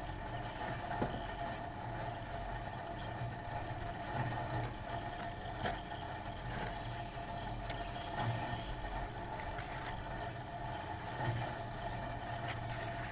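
A steady mechanical hum, like a motor or engine running, with a few faint clicks or knocks through it.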